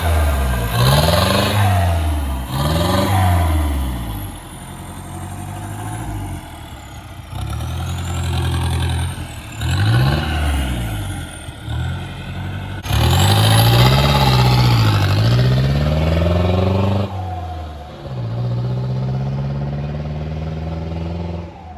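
Mahindra Bolero pickup's turbo diesel engine revving through the stock exhaust with its muffler and internal mesh removed: three quick blips up and down, a few more revs, a longer high rev about two-thirds through, then a slow steady rise near the end.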